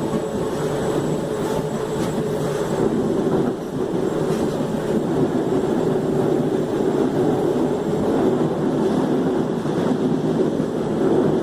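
Mafersa/Hitachi Series 1700 electric multiple unit running, its traction motors and running gear making a steady, even noise with a faint high tone over it.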